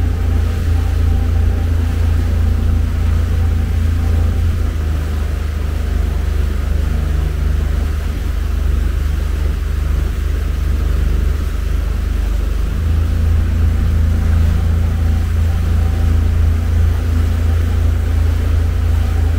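Motorboat engine running at a steady cruising speed, a low rumble with water and wind noise; the engine note shifts slightly about two-thirds of the way through.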